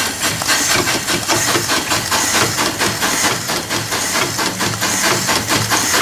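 Rebuilt steam boiler feed pump running, a rapid, even clacking of its strokes over a hiss of steam, as it pumps water into the boiler.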